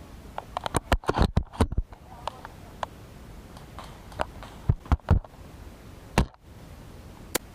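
Airsoft gunfire: sharp snaps and cracks, with a quick volley about a second in, a pair around five seconds and single cracks near six and seven seconds.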